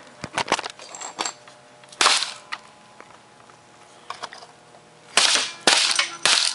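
Clicks and knocks of a laptop's plastic case being handled, with a short loud scrape about two seconds in and a longer, louder stretch of scraping and rattling from about five seconds on.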